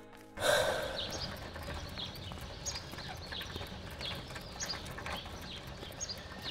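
Handcart rolling over a wet street: a low rumble from the wheels with short squeaks repeating about every half second. It starts abruptly about half a second in.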